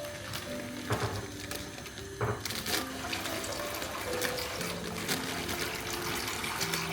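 Water running and splashing, with a few light knocks, under soft background music of slow sustained notes.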